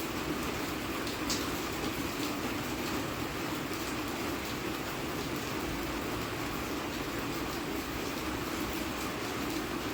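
Steady rain falling, with faint scattered drop ticks over an even hiss.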